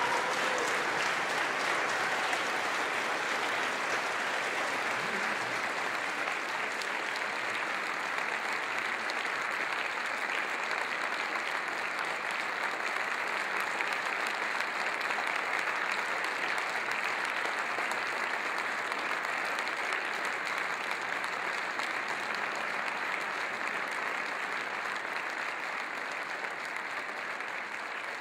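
Audience applauding steadily, the clapping easing off slightly near the end.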